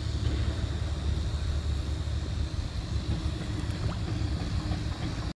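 Wind rumbling steadily on the camera microphone over open water, with a light splash about four seconds in as a released largemouth bass drops back into the river.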